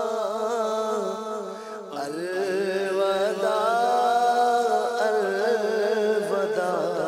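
A voice singing a slow devotional chant (naat) with long held, wavering notes over a steady low hum, dipping briefly about two seconds in before the next phrase.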